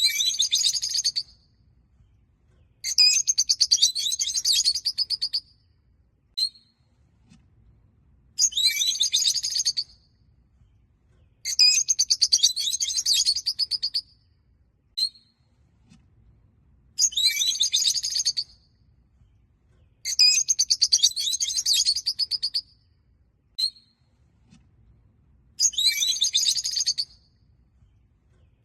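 Rosy-faced lovebirds chattering: bursts of rapid, high shrill chirps lasting one to two and a half seconds, separated by short gaps and single brief chirps, with the same sequence recurring about every eight and a half seconds.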